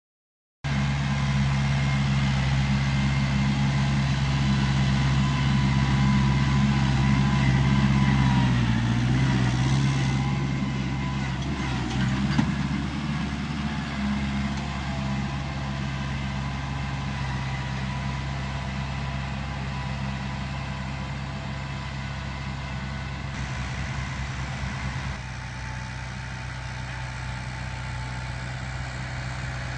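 Kubota L4508 tractor's diesel engine running steadily while pulling a tillage implement through the soil. It runs a little louder in the first third, and its note dips briefly about a third of the way in.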